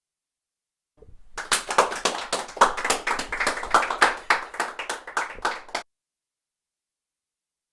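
Hands clapping: a dense, uneven run of sharp claps lasting about five seconds, starting about a second in and cutting off abruptly.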